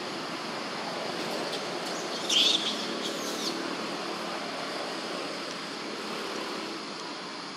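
Steady hiss of outdoor background noise, with a short, high-pitched animal chirp about two and a half seconds in.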